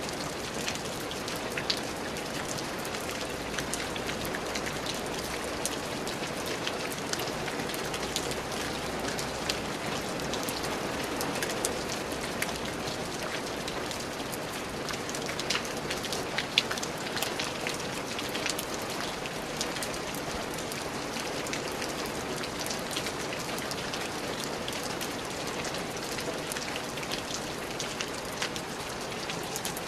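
Steady rain falling on a surface, a continuous patter with many individual drops ticking sharply through it.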